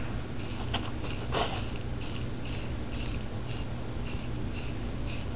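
Aerosol spray-paint can hissing in quick short bursts, a few a second, with a sharper click about a second and a half in.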